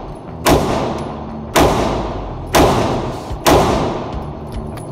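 Glock 43X 9mm pistol firing four shots about a second apart, each shot ringing out in the echo of an indoor range.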